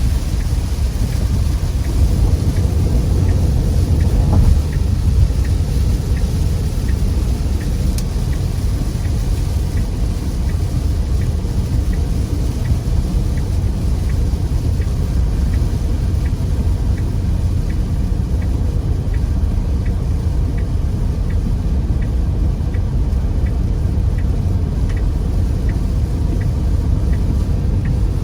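Steady low rumble of a car driving in heavy rain, heard inside the car, with a hiss of rain and spray over it. From about halfway, a faint regular ticking comes in, somewhat under two ticks a second.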